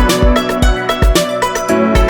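Background music with a steady, upbeat drum beat and melodic instruments.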